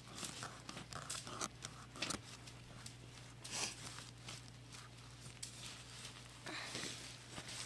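Faint knife strokes and scrapes as a small knife cuts through fish flesh on a board, with scattered soft clicks and rustles, over a low steady hum.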